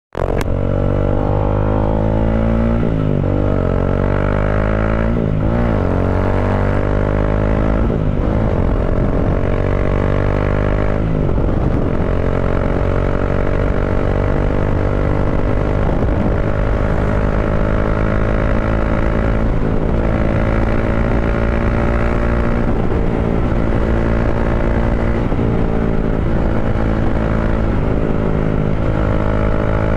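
Bajaj Dominar 400's single-cylinder engine through an Akrapovic slip-on muffler, with a resonator fitted in place of the catalytic converter, accelerating hard. It shifts up through the gears several times in the first eleven seconds or so, then pulls steadily with its pitch slowly rising.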